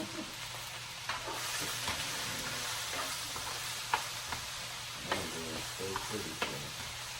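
Diced chicken and vegetables sizzling in a hot pan, with a utensil clicking and scraping against the pan about once a second as the food is stirred.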